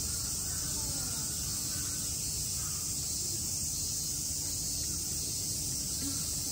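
A steady, high-pitched chorus of summer cicadas droning without a break, over a low background rumble.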